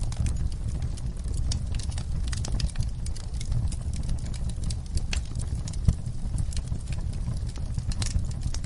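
Wood fire burning in a fireplace, a low steady rumble of flames under irregular crackles and snaps, with one louder pop about six seconds in.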